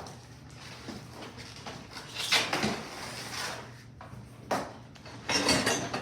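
Packaging being handled as parts are pulled from a box: irregular rustling and scraping that swells about two seconds in, again a little after four seconds, and most strongly near the end.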